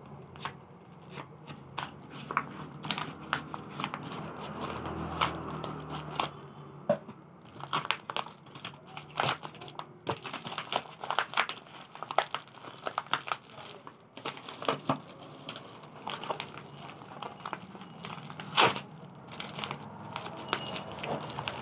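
Courier mailer bag and paper wrapping being cut with scissors, torn open and handled: irregular crinkling and rustling with frequent sharp crackles, the loudest a little before the end.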